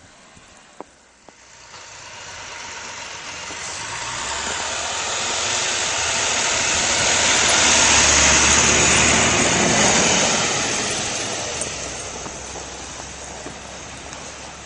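Municipal snowplow truck with a spreader body driving past close by: its heavy engine hum and the rushing noise of its passing swell to a peak about halfway through, then fade away.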